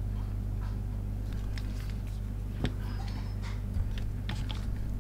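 Steady low electrical mains hum with a few faint clicks from handling a flux syringe at a circuit board. There is a sharper click about two and a half seconds in and a soft low knock a second later.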